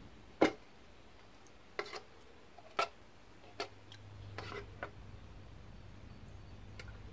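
A handful of sharp, irregularly spaced clicks and knocks, the first the loudest, with a faint low hum coming in about halfway through.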